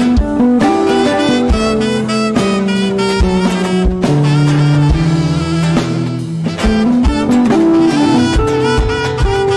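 Alto saxophone playing a solo melody, a line of held and moving notes, over a live band's backing with drums.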